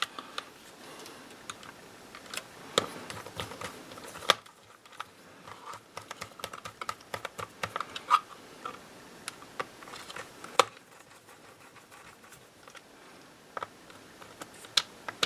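Small irregular clicks and taps of metal parts and a small screwdriver as the hard drive retainer bracket is fitted back into a MacBook Pro's aluminium case.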